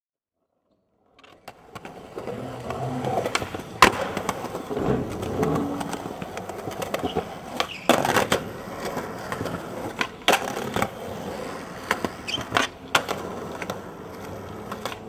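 Skateboard wheels rolling over concrete pavement, starting about a second in, with several sharp clacks; the loudest come about four and eight seconds in.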